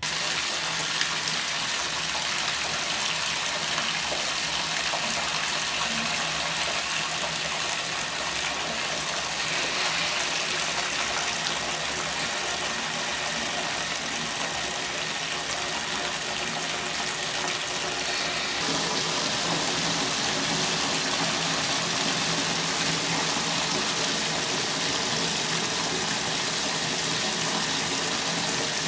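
Bathtub spout running, water gushing steadily into a filling tub.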